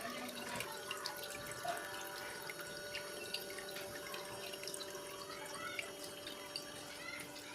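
Small homemade water fountain running: water trickling and dripping steadily, with many small splashes.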